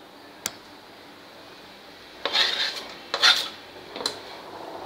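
Kitchen knife scraping chopped fenugreek leaves off a plastic cutting board: two short scrapes about a second apart, with a light click of knife or board before and after.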